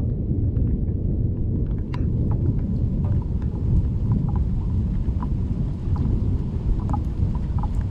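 Thunderstorm ambience: a continuous low rumble of thunder under rain, with scattered individual raindrops dripping and ticking.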